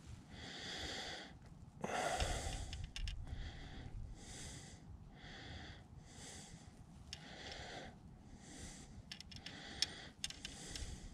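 A person breathing close to the microphone, about one hissy breath sound a second, with a soft thump about two seconds in and a sharp click near the end.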